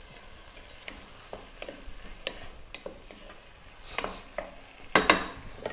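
Wooden spatula stirring diced tomato and onion cooking in oil in a pot, with soft sizzling and short scrapes of the spatula against the pot. A few louder scrapes come near the end.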